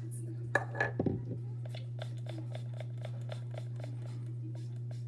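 A body mist spray bottle pumped rapidly again and again, a quick run of short sprays about five a second, over a steady low hum.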